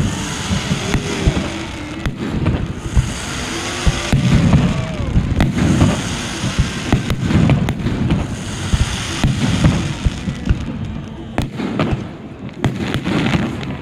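Fireworks going off in a dense run of booms and sharp bangs, with a hissing spray between them from ground fountains; the bangs grow sparser near the end.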